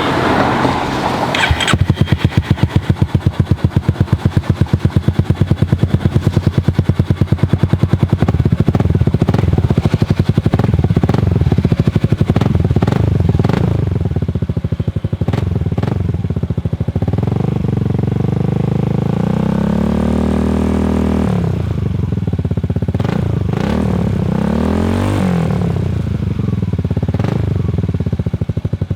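Honda Forza 350 / ADV 350 single-cylinder engine running through an Arrow black aluminium exhaust with the dB killer removed. It idles with a fast, even pulse, then is revved in a long rise in pitch that drops away sharply more than halfway through. A shorter blip follows, and it settles back to idle.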